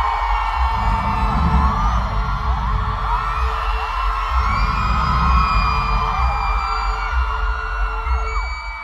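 Live pop concert heard from within the audience: the band plays with a heavy, pulsing bass while many voices in the crowd sing along and whoop. The sound drops in level near the end.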